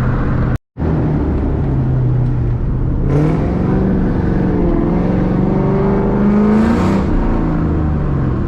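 Ford Mustang V8 engine running on the road: steady at first, then rising in pitch as it accelerates for a few seconds and dropping back near the end. The sound cuts out briefly about half a second in.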